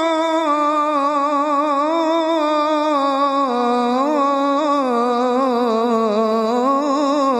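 A solo voice singing a long melismatic phrase of an Arabic salawat, one unbroken line full of quick ornaments and vibrato. It steps down in pitch about halfway through and climbs again near the end.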